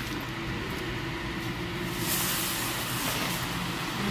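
Bus wash spraying a Neoplan trolley bus, over a low steady machinery hum. About two seconds in, a loud hiss of water jets starts and keeps going.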